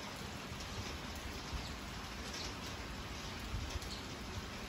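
Light rain falling: a steady hiss with scattered faint ticks of drops.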